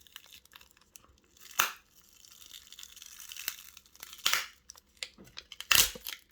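Battery adhesive crackling and tearing as a plastic card is worked under a glued-in phone battery: sharp crackles about a second and a half, four seconds and six seconds in, with fainter scraping between.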